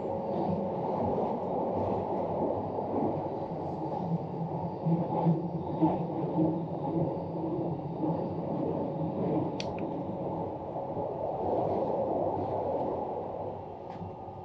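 Running noise of the Saphir Odoriko, an E261 series electric train, heard inside a passenger compartment: a steady low rumble with a faint hum. A brief light click comes about two-thirds of the way through.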